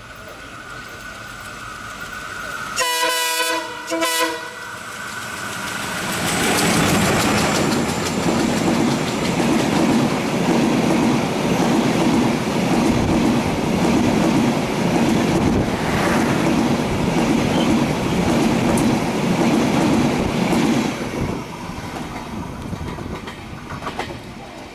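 An oncoming diesel locomotive's multi-tone air horn sounds twice in quick succession, about three seconds in. Its passenger train then passes close by on the adjacent track, the coaches' wheels clattering over the rail joints in a steady rhythm for about fifteen seconds before the noise drops away.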